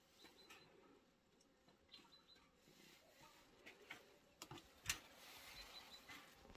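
Near silence, with faint soft clicks and rustles of hands rolling blanched cabbage leaves around a rice filling and pressing the rolls into a glass dish. There is a sharper click about five seconds in, and a few faint high chirps.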